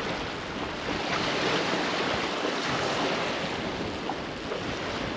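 Steady rushing of wind and choppy sea water in tidal overfalls around a small drifting boat, with wind buffeting the microphone.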